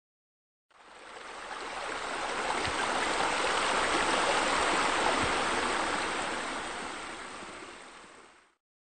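Running, splashing water like a waterfall spilling into a pool. It swells in, peaks near the middle and fades back out.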